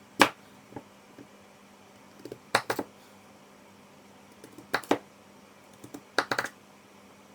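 Kitchen knife cutting a kumara (sweet potato) into chunks on a chopping board: sharp knocks of the blade hitting the board, in four short clusters about every two seconds, the first the loudest.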